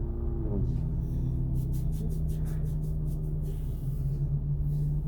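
A steady low drone that slides down in pitch about half a second in and then holds. Over it comes quick, rhythmic rustling of hands massaging product into wet hair and scalp.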